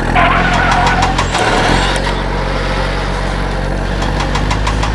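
Vehicle engine running steadily, with a quick ticking clatter over it.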